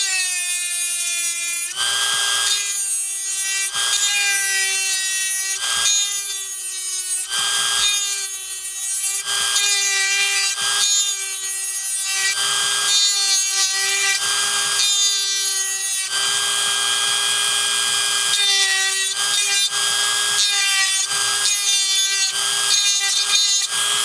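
Small high-speed rotary tool with a cutter bit, whining steadily as it grinds into the die-cast metal chassis of a toy car in repeated strokes about every second and a half, each with a gritty rasp. The cutter is dull, which the owner says is losing its edge.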